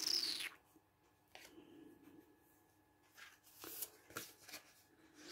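Paper rustling and sliding as printed paper and journal pages are handled, in short bursts: the loudest at the start, a few more around three to four seconds in.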